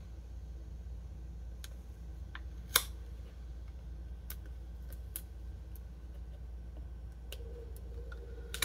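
Scattered small clicks and taps of fingers and nails handling stickers and pressing them onto a paper planner page, with one sharper click about three seconds in. A steady low hum runs underneath.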